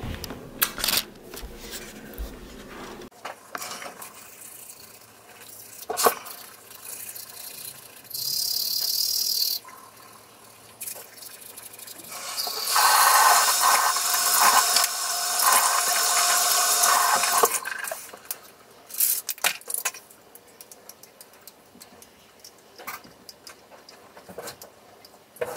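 Bathroom sink sounds around teeth brushing: a tap runs briefly, then runs again for about five seconds as a loud, steady rush of water. Scattered light clicks and knocks fill the quieter stretches.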